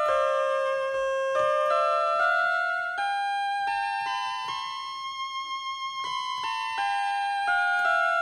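Instrumental electronic keyboard music with held, stepping notes. In the middle the melody slides slowly upward, with a wavering tremolo about halfway through.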